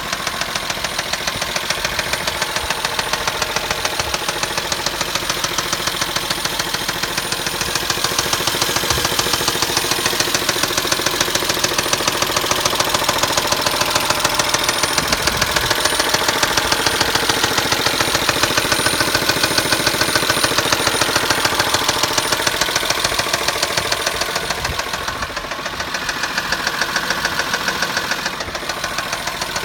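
Chrysler Pacifica's engine running with a rapid, even knocking that repeats throughout.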